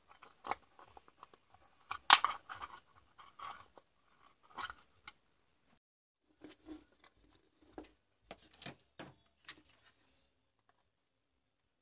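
Pliers snipping and cracking plastic inside a cordless drill's battery case: a run of sharp clicks with one loud snap about two seconds in. This is followed by a few softer knocks of the plastic case parts being handled, and it falls quiet near the end.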